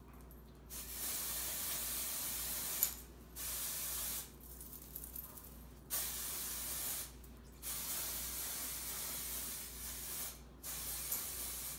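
Aerosol can of spray-on hair dye hissing onto hair in five long sprays of one to three seconds each, with short pauses between them.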